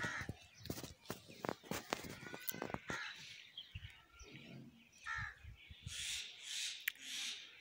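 Crows cawing, a series of about four harsh caws in the second half. A run of sharp clicks and knocks comes in the first three seconds.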